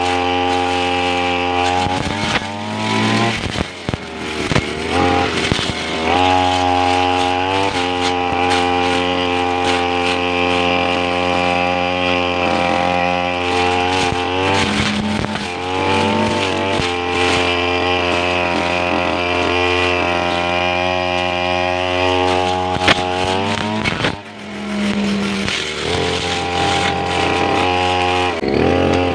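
Two-stroke brush cutter engine running at high revs. The throttle is eased off three times, with the engine sinking toward idle, then opened up again.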